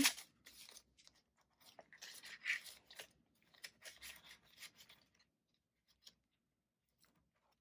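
Paper banknotes rustling and a clear plastic cash envelope crinkling as bills are handled and slid into the binder pocket: soft, scattered rustles that die away about five seconds in.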